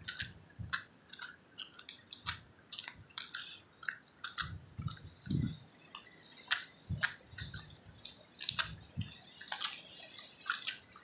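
Footsteps on wet pavement with phone handling noise: irregular soft thumps and squelchy clicks at a walking pace.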